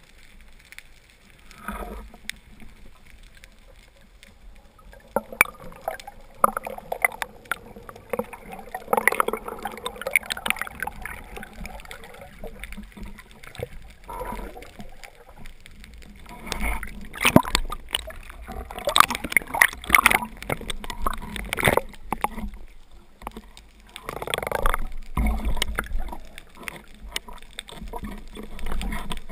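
Water sloshing and gurgling around the camera, broken by scattered clicks and knocks, with louder stretches now and then.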